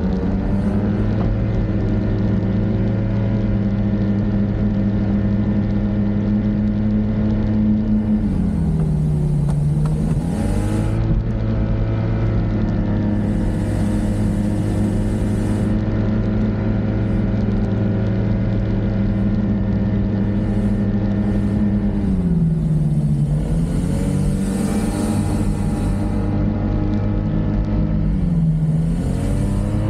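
Snowmobile engine running steadily as it travels along a trail. Its pitch dips and climbs back about a third of the way in and twice more near the end as the revs drop and pick up again, with patches of hiss.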